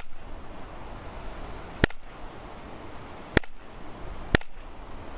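Two pieces of wooden board slapped together by hand, making sharp, sudden cracks: three claps at uneven intervals, plus the tail of one at the very start. They are struck as impulse sounds for timing an echo.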